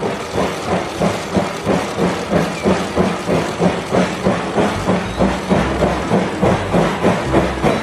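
Steam train chugging: a rhythmic chuff with hiss, about three beats a second, running steadily.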